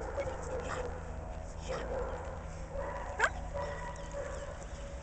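A dog whining, with one sharp rising yelp about three seconds in.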